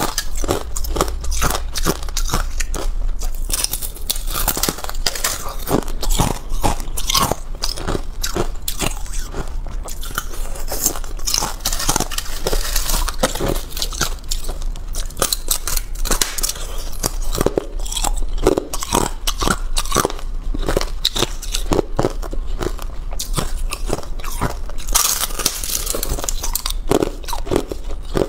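Thin shards of balloon ice being bitten and chewed: a dense, uneven run of sharp crunches and crackles.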